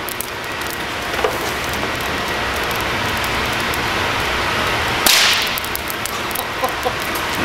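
Single loud, sharp crack about five seconds in: an electron-beam-charged acrylic (Lichtenberg figure) block discharging all at once through a grounded probe held to its edge. A few small crackles follow as leftover trapped charge sparks out.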